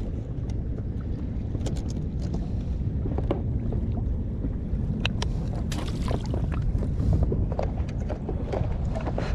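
Wind buffeting the microphone over water lapping against an inflatable boat, a steady low rumble with scattered small knocks and clicks.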